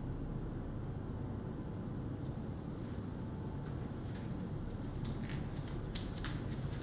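Steady low rumble of background ambience, with a few soft footsteps in the last two seconds.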